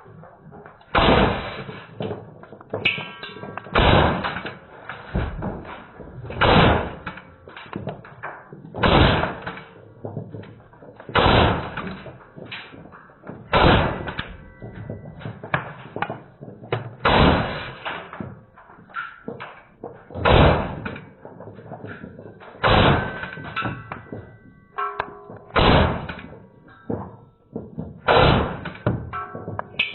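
Slowed-down slow-motion audio: a series of deep, drawn-out thuds about every two and a half seconds, with fainter knocks between them.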